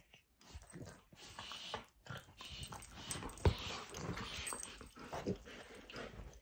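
A golden retriever and a Cavalier King Charles spaniel puppy play-wrestling on a bed: uneven scuffling on the bedding and mouthing at each other, with one sharp knock about three and a half seconds in.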